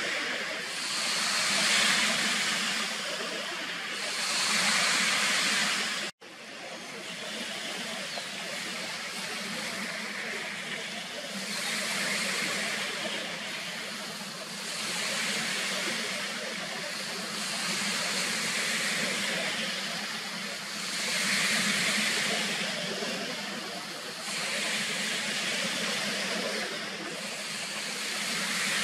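Outdoor background hiss that swells and fades in waves every two to three seconds over a faint steady low hum. It cuts out for an instant about six seconds in.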